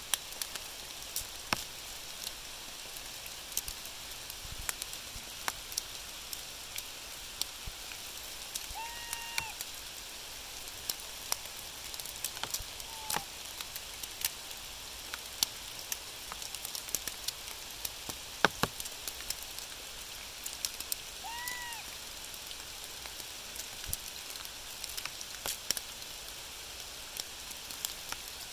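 Steady rain hissing, with many scattered drops ticking and tapping close by. A few short rising-and-falling calls come through, about a third of the way in, near the middle, and about three quarters through.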